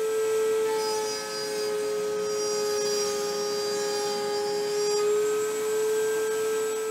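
Table-mounted wood router running at a steady high pitch while a plywood side panel is fed across the bit, milling a slot for a drawer to slide in.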